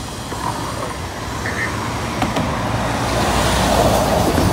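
A truck driving past close by on the road, its noise building over the last couple of seconds as it passes.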